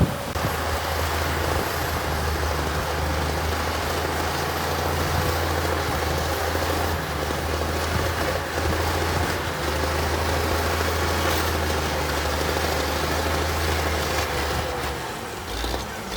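Heavy diesel engine of construction equipment running steadily with a low, even drone that briefly dips a few times and eases off near the end.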